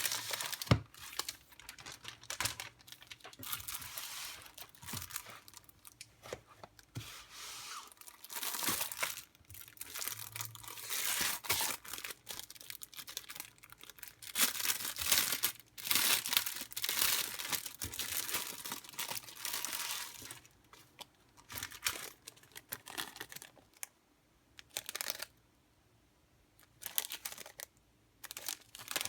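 Packaging being torn open and crinkled by hand: repeated bursts of tearing and rustling, thinning to a few short rustles with quiet gaps in the last third.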